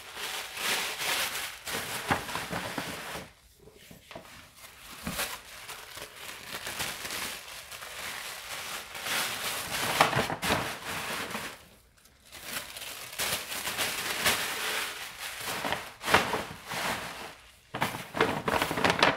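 Paper rustling and crinkling in stretches with short pauses, as hands work inside a kraft-paper gift bag.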